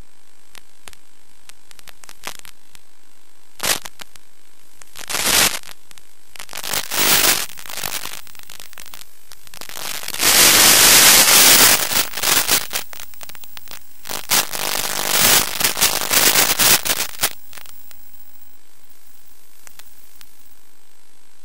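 Radio static from an analog FPV goggle receiver: a steady low hiss broken by bursts of crackling, the loudest lasting about two seconds midway and another cluster a few seconds later, as the video signal breaks up.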